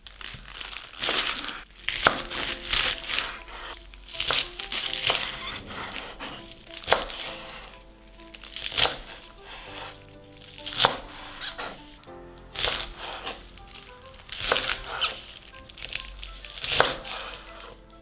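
A chef's knife cutting through crisp lettuce leaves onto a bamboo cutting board, a crunch and knock about every two seconds with leaves rustling between, over soft background music.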